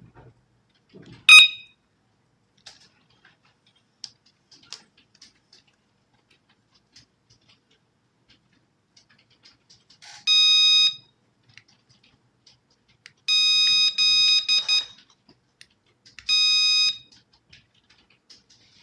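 Mini siren alarm unit's buzzer beeping: a short, sharp beep about a second in, then three steady high-pitched beeps spaced a few seconds apart, the middle one the longest. Faint clicks come between the beeps.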